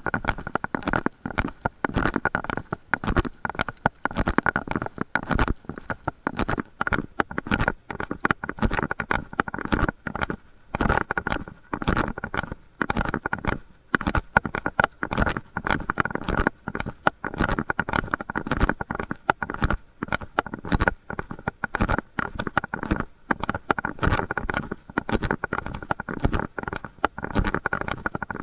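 Constant, irregular crackling and rumbling noise on the microphone of a camera carried while walking.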